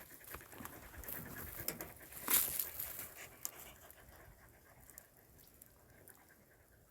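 Hairless dogs moving about: scratchy scuffling and clicking, loudest in a brief flurry about two seconds in, then fading to faint scuffles after about four seconds.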